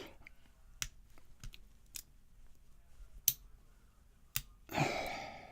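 Lock pick and tension wrench working a five-pin Yale pin-tumbler padlock: scattered light clicks and scrapes from the pick in the keyway, with a few sharper clicks. About a second before the end there is a louder burst of noise lasting about half a second.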